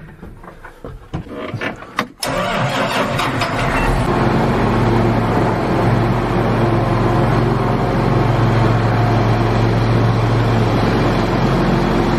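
Large John Deere tractor's diesel engine starting about two seconds in, after a few knocks in the cab, then settling into a steady idle.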